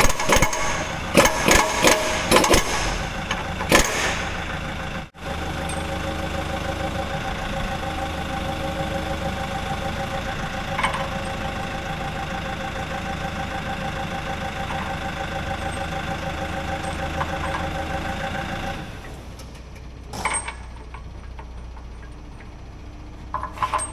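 Several sharp knocks in quick succession, then an engine running steadily with a slight pulse for about fourteen seconds. Near the end the engine sound drops away, leaving two short knocks.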